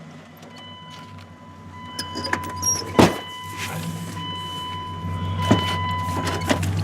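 Pickup truck engine idling just after starting, with a steady electronic warning tone sounding in the cab. A single loud thump about three seconds in, like a door shutting, and then the engine grows louder as the truck is moved.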